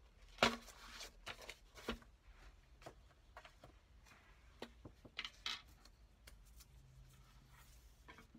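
Paper rustling and light taps as a folded paper spine is handled and laid over a book, with a few short sharp clicks; the loudest rustle comes about half a second in, and another cluster around five seconds.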